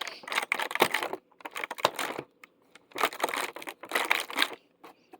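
Packaging being crinkled and torn open by hand, in four irregular rustling bursts with short gaps between them.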